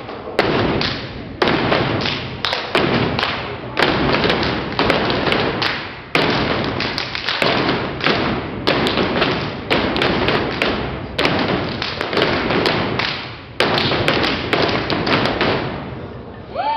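A step team stomping and clapping in unison, a loud rhythmic run of heavy thuds and sharper smacks, each hit ringing out in the hall before the next.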